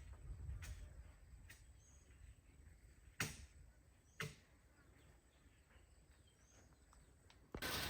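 A few sharp knocks, the two loudest about three and four seconds in, over a faint low rumble; near the end a steady hiss starts suddenly.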